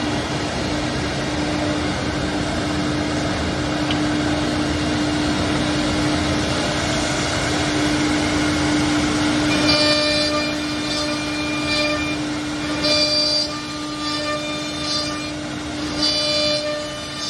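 Four-head CNC mortising machine running, its router spindles giving a steady whine. About ten seconds in, louder high-pitched squeals come and go several times, typical of the bits cutting mortises into the wood.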